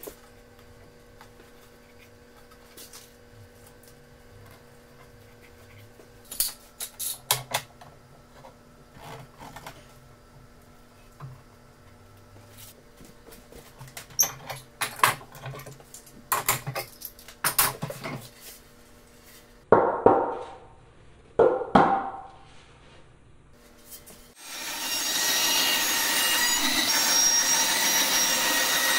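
Wooden parts and metal clamps knocking and clicking as they are handled on a workbench, then two short, loud rasping scrapes. About three-quarters of the way through, a bandsaw starts up and runs steadily and loudly with a whining hum.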